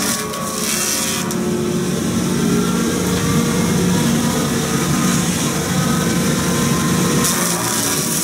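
Excavator-mounted hydraulic rotary cutter slicing into a tree trunk, with a harsh burst of cutting in the first second and again near the end, over the steady hum of the excavator's engine and hydraulics.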